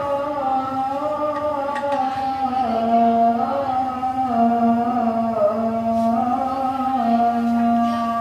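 Slow chant-like singing with long held notes that slide from one pitch to the next.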